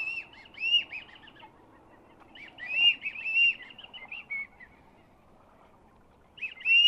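Black-bellied whistling ducks calling from a flock in flight, in three runs of quick, high, arched whistled notes.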